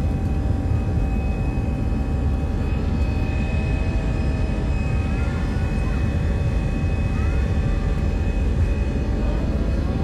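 Jet airliner's engines and rolling rumble heard from inside the cabin as the plane moves along the runway: a steady, loud rumble with a constant high whine over it.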